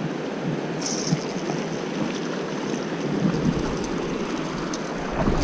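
Mountain stream water rushing steadily over rocks, which cuts off abruptly at the end.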